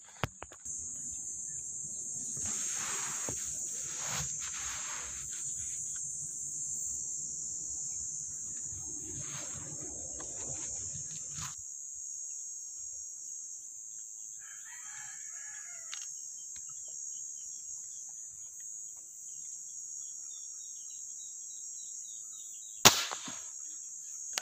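Brush and leaves rustling for the first half, a rooster crowing once in the middle, and a steady high insect buzz throughout. Near the end a single sharp crack: an air gun shot at fish in the water.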